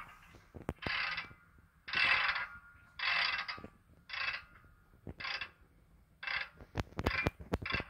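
Sound decoder of a Broadway Limited N scale RSD-15 diesel model with Paragon sound, heard through the model's small speaker while the locomotive stands still: a string of short air hisses about a second apart, with sharp clicks between them.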